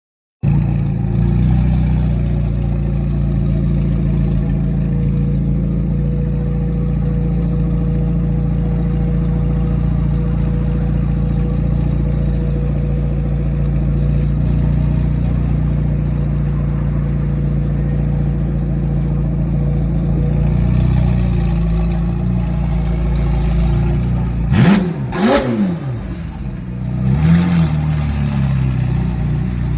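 McLaren 720S Spider's twin-turbo V8 idling steadily, with a faint steady whine over it for a long stretch while the retractable hard top opens. Near the end the engine is revved in two quick throttle blips close together, then a smaller third one.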